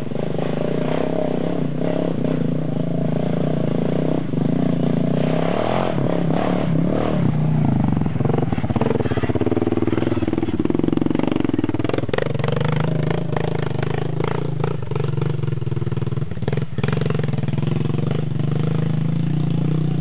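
Quad bike engine running under load as it climbs a rocky dirt trail, its pitch rising and falling in the middle as the throttle is worked, with a few sharp knocks along the way.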